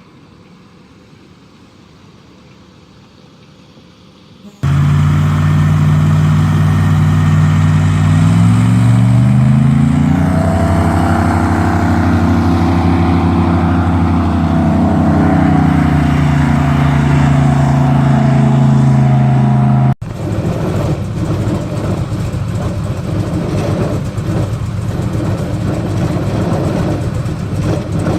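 Airboat engine and propeller running loud. A few seconds in it starts suddenly, its pitch climbs as it revs up, holds, then eases back down. After an abrupt change partway through, a rougher, noisier engine sound continues.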